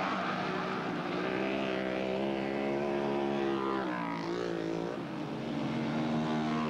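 Dirt bike engines running on the track, the pitch climbing as a bike accelerates, dropping sharply about four seconds in, then climbing again and dropping once more near the end, like gear changes.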